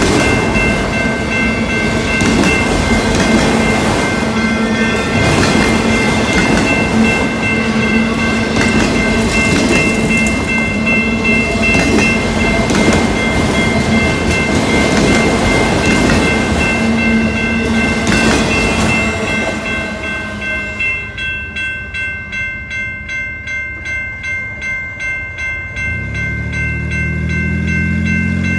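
Freight cars rolling past a grade crossing, wheels clattering over the rails, with the crossing bell ringing steadily. About 20 seconds in, the last car clears and the bell rings on alone about twice a second. Near the end a car engine comes in.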